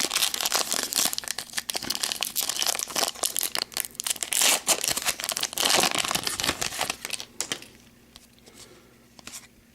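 Wrapper of a hockey card pack being torn open and crinkled, a busy crackling that stops about three-quarters of the way through.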